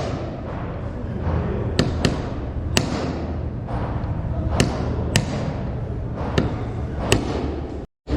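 Sharp, irregular knocks and clicks of repair work on metal, several seconds apart, over a steady low hum. The sound cuts out for a moment near the end.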